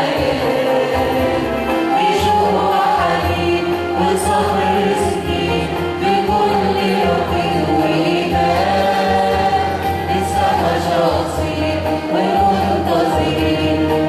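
Church choir singing an Arabic Christian hymn in sustained notes over a steady low bass accompaniment.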